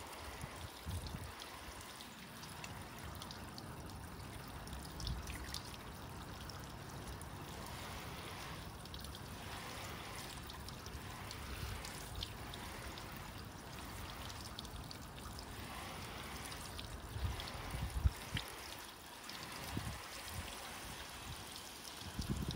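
Garden hose on a shower spray hissing steadily as the water splashes over a car's painted body panels and wet concrete. Occasional low thumps, the loudest about 18 seconds in.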